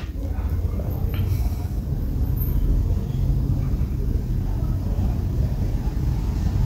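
A Zippo lighter's lid clicks sharply right at the start, with a fainter click about a second in, over a steady low rumble that carries on throughout.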